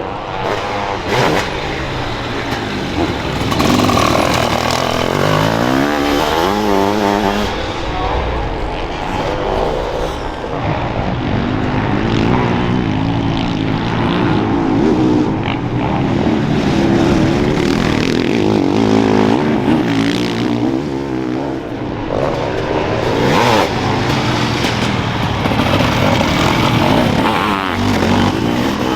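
Several motocross race engines revving up and down as they accelerate and shift around the track, the pitch rising and falling again and again with overlapping engines.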